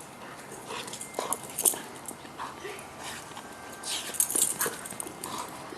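A dog whimpering briefly a few times, among scattered light rustles and clicks.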